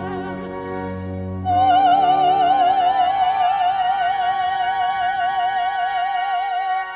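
Soprano singing a Spanish art song with pipe organ accompaniment. About a second and a half in she takes a long, louder held note with wide vibrato, which ends just before the end while the organ sustains underneath.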